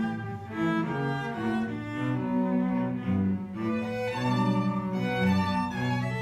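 Music from a small ensemble: several overlapping held notes in the low and middle range, changing every second or so, in the manner of bowed strings.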